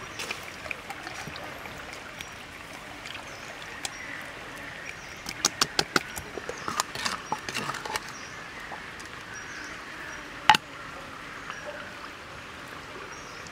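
Wet, sticky handling of a raw whole chicken as hands turn it and rub marinade into its skin: a cluster of short wet smacks and clicks in the middle, then one sharp knock about ten seconds in, over a steady outdoor hiss.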